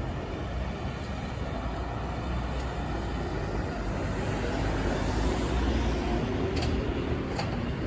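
Road traffic passing close by, louder a few seconds in as a minivan drives past, over the running of a Seoul Subway Line 4 electric train pulling out of the station. A couple of faint clicks come near the end.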